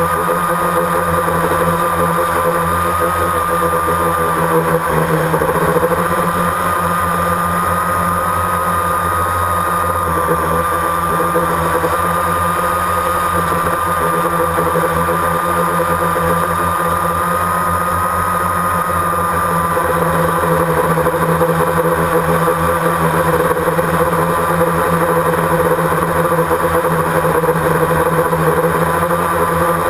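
Multirotor drone's motors and propellers whirring steadily in flight, a high whine whose pitch wavers slightly as it holds and shifts position.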